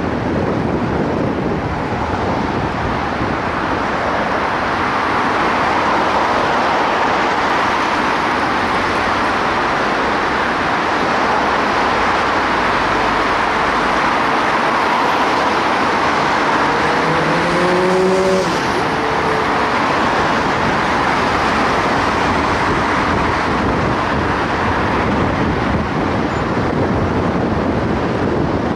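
Steady road and wind noise from a car driving through city traffic. About two-thirds of the way through, an engine's note rises in pitch for a couple of seconds, as a vehicle accelerates.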